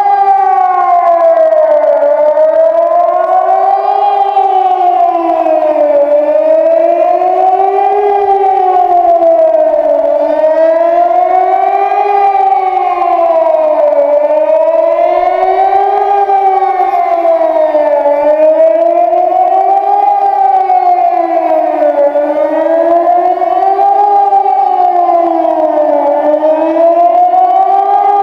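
Swiss electronic civil-defence siren sounding the general alarm, a loud tone whose pitch rises and falls smoothly, one full up-and-down cycle about every four seconds.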